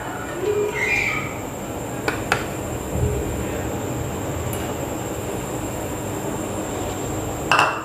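Cooking oil being poured into a large aluminium cooking pot on the stove, with a steady rushing noise. There are two light clicks a little after two seconds and a dull knock about three seconds in.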